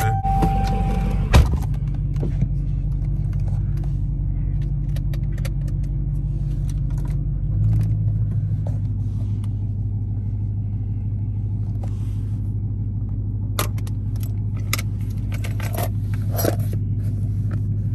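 Supercharged 6.2-litre HEMI V8 of a Dodge Hellcat idling steadily, heard from inside the cabin; its low note gets a little fuller about eight seconds in. A sharp knock comes a second or so in, and near the end the lid of a Faraday key box clicks and keys jangle.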